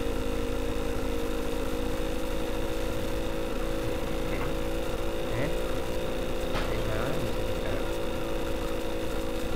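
A steady mechanical hum made of several constant low tones, with faint voices in the background.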